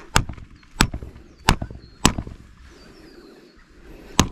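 Rubber mallet knocking a blue poly pipe fitting onto the pipe to seat it. Four sharp knocks come about two-thirds of a second apart, then a pause, then a fifth near the end.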